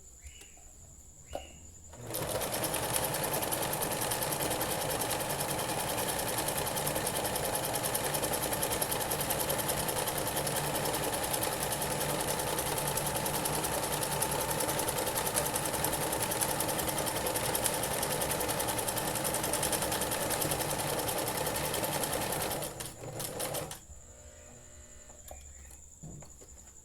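Electric sewing machine stitching steadily for about twenty seconds, starting about two seconds in, then a few short bursts before it stops.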